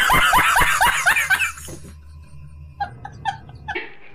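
A man's loud laughing meme sound effect: a rapid run of cackling "ha-ha-ha" laughs, about five a second, that stops about a second and a half in. A few short, quieter laughs follow around three seconds in.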